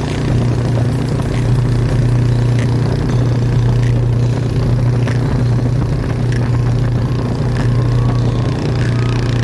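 Boat engine running steadily at a constant speed, a loud, even low drone with no change in pitch.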